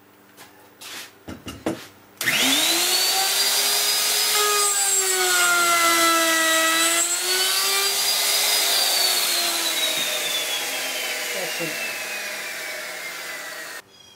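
Handheld electric router starting up with a rising whine, about two seconds in, then cutting a groove in maple plywood along a clamped straight edge; its pitch dips in the middle as the bit is loaded in the cut, rises again, then falls steadily as the router winds down, until it stops abruptly near the end. A few knocks of handling come before it starts.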